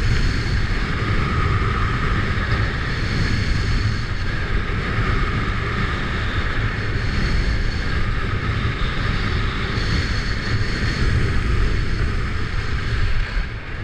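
Wind rushing and buffeting over the camera's microphone during a ski descent, mixed with the steady hiss and scrape of skis sliding on packed snow.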